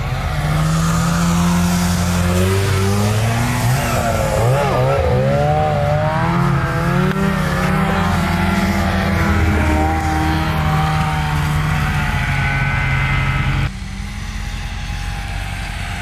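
Ram 2500 Power Wagon's 6.4-litre HEMI V8 revving up and down, its pitch rising, falling and wavering. The engine sound drops away abruptly near the end, leaving a quieter steady rumble.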